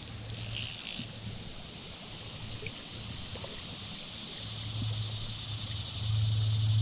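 Shallow creek water running, a steady hiss, with a few faint ticks. A low hum grows louder from a little past halfway.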